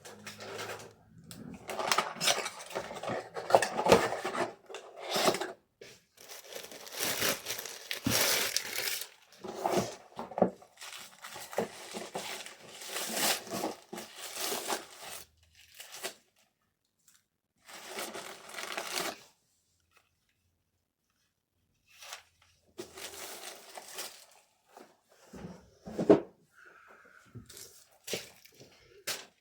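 Packaging materials handled by hand: irregular bursts of rustling, crinkling and tearing of paper or plastic, with a few pauses and some sharp knocks near the end.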